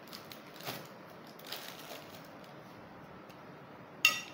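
Quiet room noise with faint small handling sounds, then one short, sharp ringing clink near the end.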